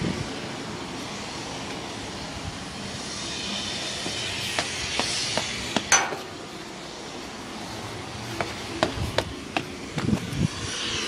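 Outdoor traffic-like drone with an aircraft engine growing louder near the end, and scattered sharp clicks and knocks through the second half.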